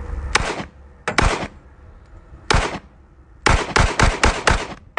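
A Glock 21 Gen 4 .45 ACP pistol fired about nine times: a single shot, a quick pair, another single, then a rapid string of five about a quarter second apart.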